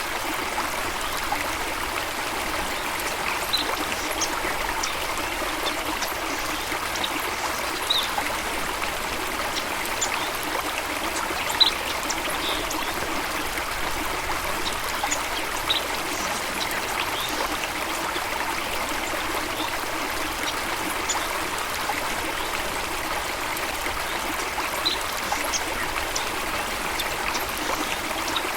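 Steady rush of a flowing stream of water, with short, high bird chirps scattered through it now and then.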